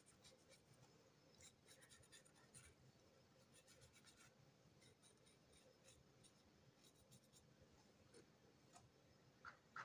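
Near silence: faint scratchy strokes of a small paintbrush dabbing paint onto a crocheted yarn beak, with soft handling of the toy.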